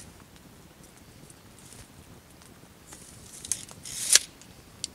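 Retractable tape measure being handled: a sharp click, then a scraping rustle that builds and ends in a loud snap about four seconds in.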